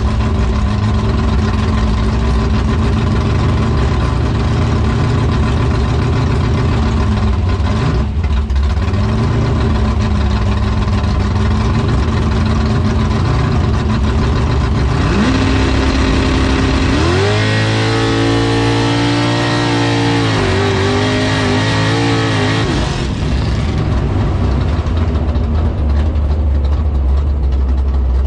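Drag race car engine heard from inside the cabin, rumbling at idle at the start line, then climbing in revs a little past halfway and pulling hard at full throttle on a nitrous test pass, with one gear change, before lifting off to a lower rumble near the end.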